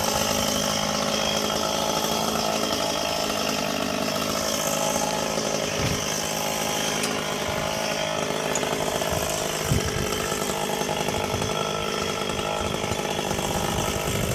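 Two-stroke chainsaw engine running steadily at speed, with a single sharp knock about ten seconds in.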